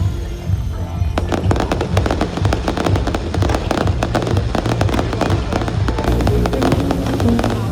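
Aerial fireworks bursting into a rapid, dense crackle that starts about a second in, over phonk background music with a strong bass line.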